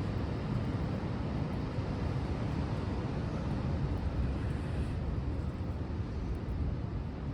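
Steady low rumble of wind on the microphone over the wash of the sea, with no distinct events.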